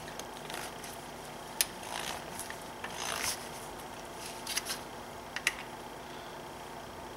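Scattered light clicks and rubbing of a torque wrench on metal as the brake rotor's small hold-down screw is turned down to its torque.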